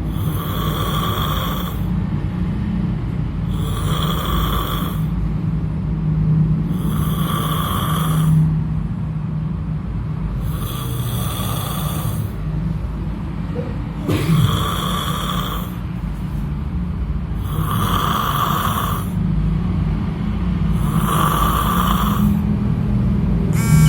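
A sleeping person snoring loudly and regularly, one snore about every three and a half seconds, over a steady low hum.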